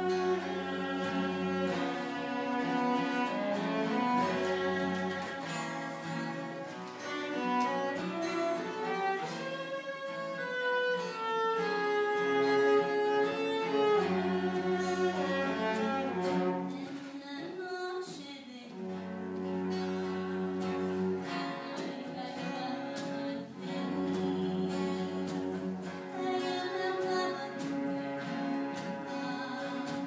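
Live chamber music from a small ensemble with bowed strings, a cello carrying the low line, with a brief lull about two-thirds of the way through.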